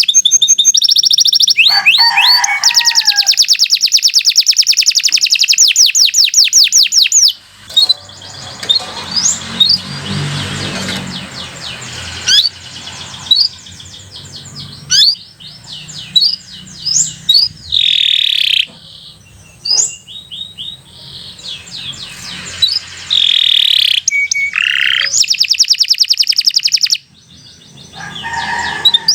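Domestic canary singing a long continuous song. It opens with very fast rolling trills, moves into varied chirps, rising whistles and short buzzy notes, and returns to rapid trills near the end.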